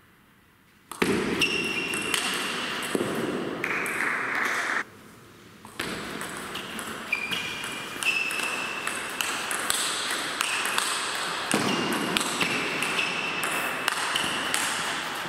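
Table tennis ball being hit back and forth in a rally: a run of sharp, ringing clicks of ball on bats and table. The clicks stop briefly at the start and again about five seconds in.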